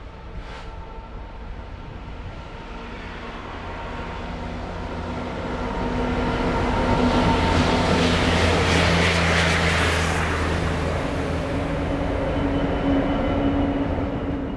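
A diesel locomotive hauling a railhead treatment train approaches and passes close by. Its engine drone builds, and at the loudest point the tank wagons roll past with a rushing hiss from the high-pressure water jets spraying the rails. The sound eases off near the end.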